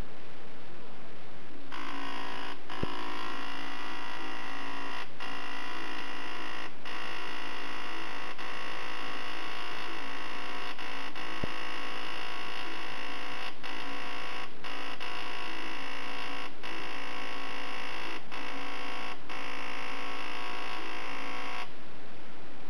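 A steady electric buzzer tone that starts abruptly about two seconds in and cuts off abruptly near the end, broken by short gaps every second or two. Two sharp clicks are heard, near the start and about halfway through.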